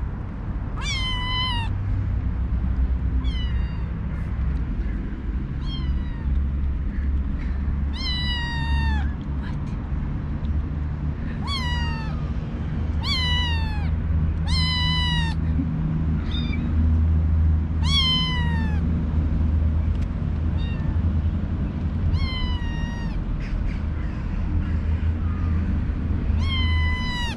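Kitten meowing over and over, about a dozen high, thin meows spaced a few seconds apart, each dropping in pitch at the end, over a steady low rumble.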